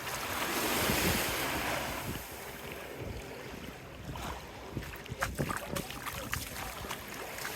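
Small waves washing up the sand, the wash swelling about a second in and then easing, with wind rumbling on the microphone and a few faint ticks later on.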